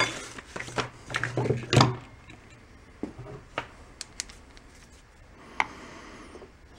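Handling noise on a workbench: tools and small objects being picked up, shifted and set down, with a cluster of sharp knocks and clatter in the first two seconds, then scattered single clicks.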